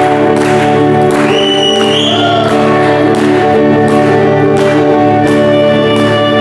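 Live instrumental music: held chords over a steady beat, with a brief high sliding tone about a second and a half in.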